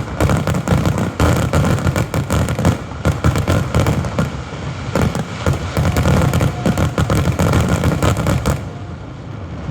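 Fireworks finale barrage: a dense, rapid run of bangs and booming bursts from aerial shells, easing off near the end.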